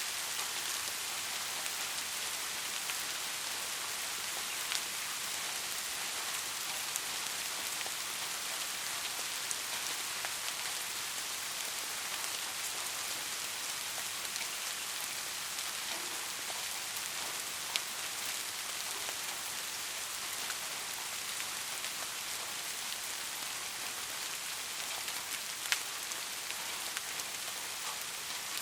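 Soft rain falling steadily, an even hiss with the odd sharper tick of a single drop striking nearby.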